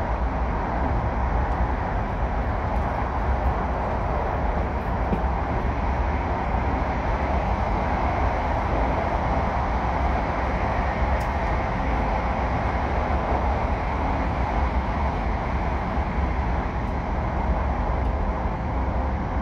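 Steady running noise heard inside the cabin of an E5 series shinkansen at speed in the Seikan Tunnel: a constant deep rumble with a rushing hiss of wheels and air.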